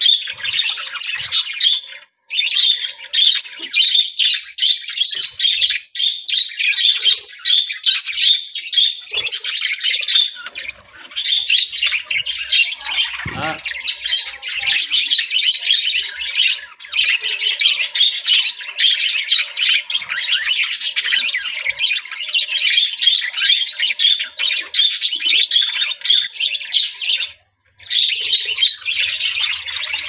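A flock of budgerigars chattering and squawking almost without pause, in dense high-pitched chirps. The chatter drops out briefly about three times.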